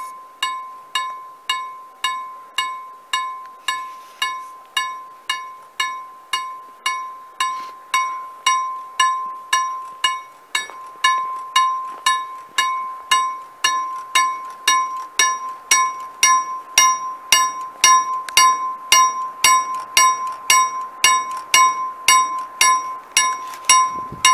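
Railway level-crossing warning bell (KLD-40 electric bell) striking steadily, a little under two strokes a second. Each stroke rings with a clear metallic tone and dies away before the next. It sounds the warning that a train is approaching the crossing, and grows louder in the second half.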